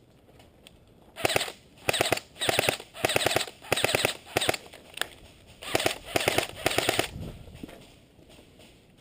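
Airsoft gun firing full-auto in short bursts, about nine rapid bursts over six seconds, with a one-second pause partway through.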